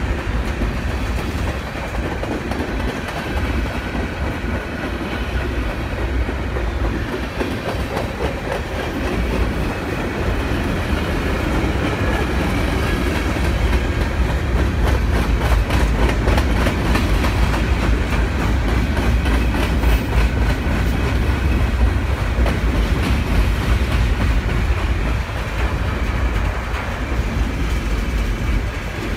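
Covered hopper cars of a long freight train rolling past: a steady low rumble of steel wheels on rail with dense, rapid clicking and clatter.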